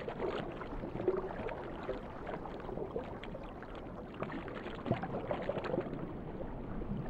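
Muffled underwater water ambience: a steady wash of moving water with scattered faint clicks and bubbling.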